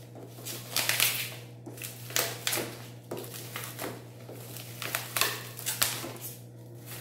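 Bubble wrap and plastic packing film crinkling and rustling in irregular bursts as they are pulled off by hand.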